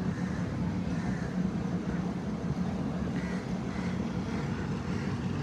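Jet ski engine running with a steady drone.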